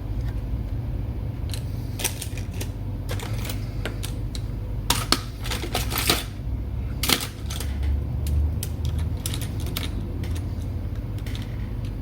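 Laptop keyboard keys pressed one at a time at an irregular pace, sharp clicks while navigating BIOS menus, over a steady low hum.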